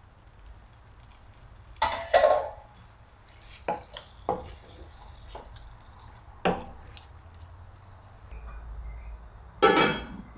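A wooden spatula knocking and scraping against a pan while stirring pieces of chicken breast, with several sharp knocks. Near the end comes a louder clatter as a lid is handled on a pan.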